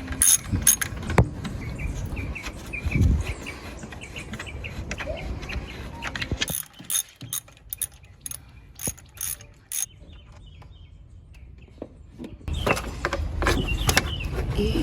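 A series of sharp mechanical clicks: a few scattered ones at the start, then a run of about eight spaced a few tenths of a second apart in the second half.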